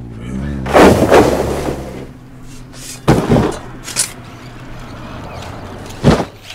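Shovelfuls of sand thrown onto a cardboard television box, landing four times, the loudest and longest about a second in and the others near three, four and six seconds. A wavering pitched tone fades out in the first second.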